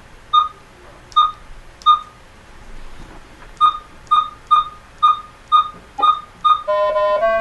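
Short electronic beeps from a Tasman V1000 sailplane variometer as its buttons are pressed to step through the response-time setting: three beeps about a second apart, then after a pause a quicker run of seven. Near the end a longer, buzzier tone sets in, stepping in pitch.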